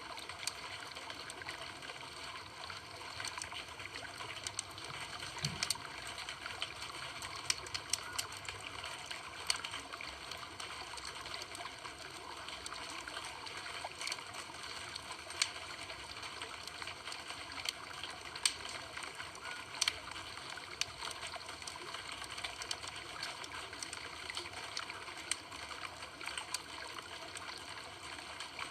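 Campfire burning: a steady hiss with irregular crackles and now and then a sharper pop.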